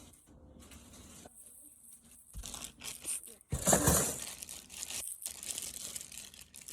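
Crinkling and rustling of cardboard and plastic being handled, in irregular bursts, loudest about three and a half seconds in.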